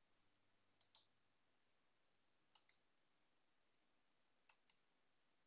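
Faint clicks from computer controls, in three quick pairs: about a second in, about two and a half seconds in, and near the end.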